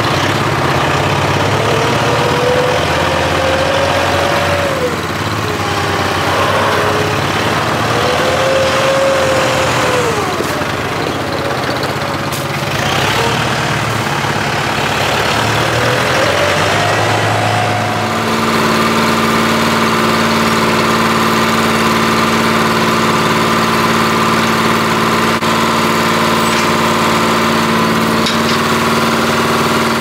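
Kubota tractor's diesel engine running while its front loader works, with a whine that rises and falls several times. About 18 seconds in, the sound changes abruptly to a steady engine drone from a hay bale chopper shredding hay.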